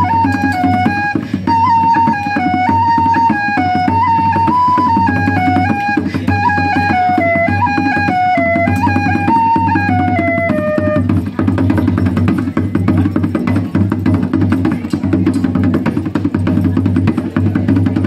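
Live folk and medieval band music: a high melody moving in steps over a steady low drone, with hand-drum percussion. The melody stops about eleven seconds in, while the drone and the drumming carry on.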